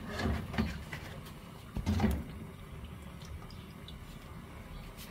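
A few dull knocks and thumps of kitchen handling, the loudest about two seconds in, while cooking oil is poured into an empty frying pan.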